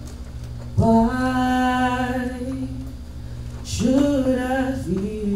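A woman singing a slow hymn-like song in long held notes, the first entering about a second in and the next near the end, over soft sustained chords from a Roland Juno-DS electronic keyboard.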